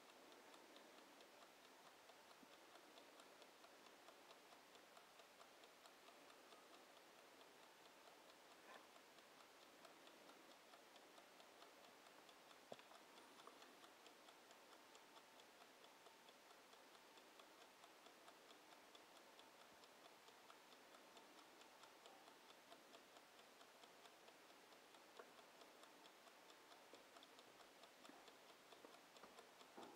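Bodum wind-up mechanical kitchen timer ticking faintly and steadily as it counts down.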